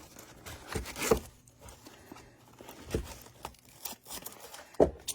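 Handling noise: light rustling with a few sharp knocks, the loudest shortly before the end.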